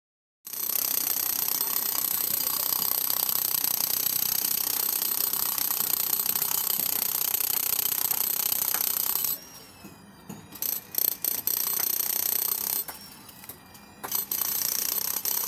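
Handheld electric demolition hammer chipping reinforced concrete, hammering continuously with a steady high whine. It stops about nine seconds in, gives a few short bursts, and starts hammering again near the end.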